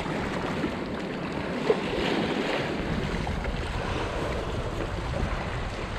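Sea water washing and lapping against concrete tetrapods, with wind buffeting the microphone; a single small click just under two seconds in.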